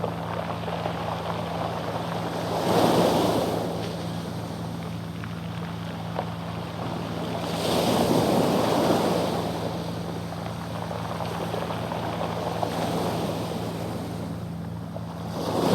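Waves surging onto a pebble beach three times, about five seconds apart, with the hiss and rattle of stones rolling in the wash. Under it runs the steady low drone of a passing fishing boat's engine.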